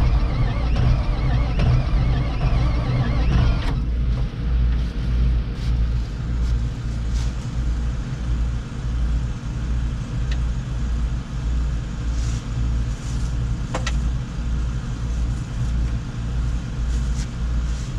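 John Deere tractor's diesel engine on a cold start with ether, turning and chugging in a low, uneven beat. A fuller, louder layer of sound drops away about four seconds in, while the low chugging goes on.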